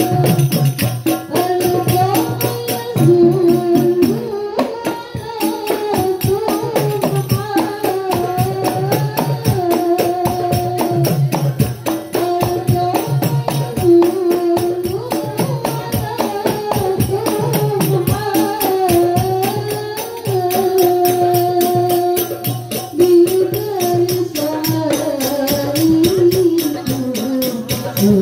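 Rebana frame-drum ensemble, hand-struck in a steady rhythm, under a sung devotional melody (sholawat).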